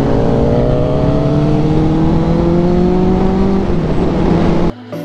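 Onboard sound of a Benelli 600i's inline-four engine pulling steadily in gear, its pitch climbing slowly, then dropping briefly near the end as the throttle eases or the gear changes, with heavy wind rumble from riding speed. Music cuts in just before the end.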